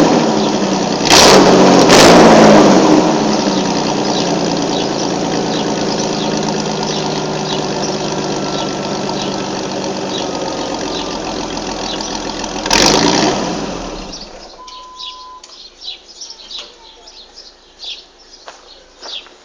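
Chevrolet S-10's 2.8 L V6 exhaust through a Flowmaster muffler: two quick revs about a second in, then idling. One more rev comes near the end, and then the engine shuts off, leaving only faint chirps.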